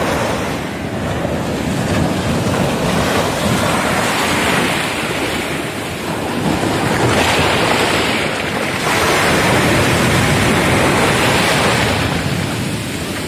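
Ocean surf washing up the beach, with shallow waves rushing and swirling over the sand and growing louder about halfway through. Wind buffets the microphone.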